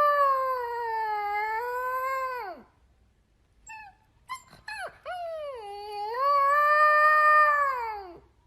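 A dog howling: two long drawn-out howls with a slight rise and fall in pitch, each dropping away at its end. A few short faint yips come between them.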